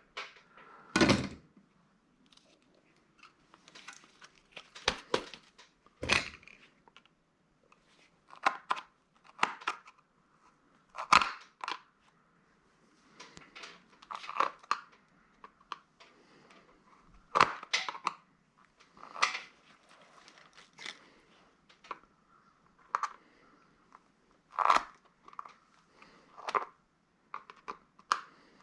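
Irregular clicks, knocks and plastic crackling from a handheld retail inventory scanner being taken apart by hand, its plastic housing and metal parts handled piece by piece, with several louder knocks scattered through.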